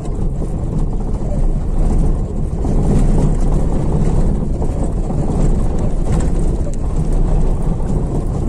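Steady low rumble of a vehicle driving slowly along a paved street: engine and road noise.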